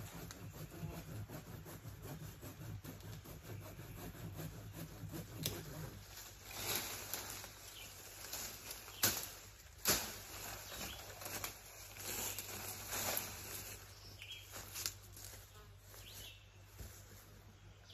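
Leafy sapling branches rustling and swishing as the cut sapling is handled and dragged through the brush, with a few sharp twig snaps past the middle. A low rough rasp fills the first few seconds while he works at the base of the trunk.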